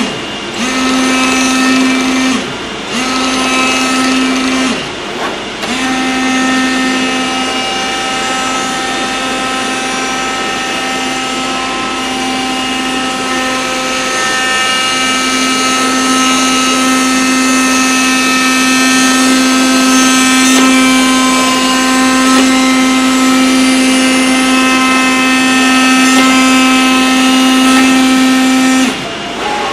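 Oscillating knife of a CNC cutter buzzing with a steady pitched hum as it cuts gasket sheet. It stops briefly three times in the first few seconds, then runs on steadily and cuts off just before the end.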